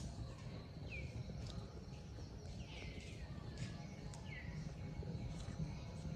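Birds calling: a few short calls that sweep down in pitch, at uneven intervals, over a steady low rumble.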